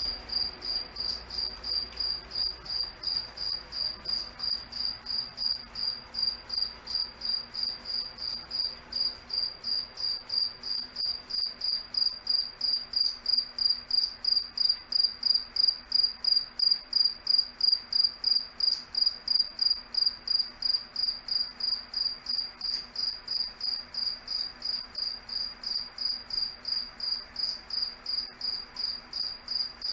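Cricket chirping in a steady, even rhythm of about three high-pitched chirps a second, each on the same pitch, growing somewhat louder through the middle.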